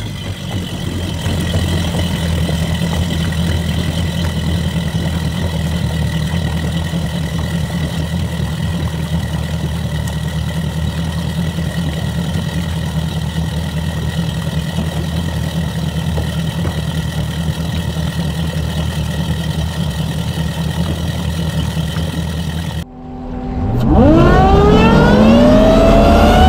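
Mercury Racing 450R supercharged V8 outboard running steadily at low speed, with a steady whine over its low drone. About 23 seconds in, after a brief dip, the engine revs hard as the boat accelerates from a standstill: its pitch climbs steeply for about two seconds, then levels off near the end.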